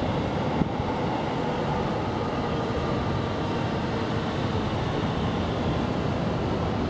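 Steady low rumbling background noise with a faint hum, without distinct events.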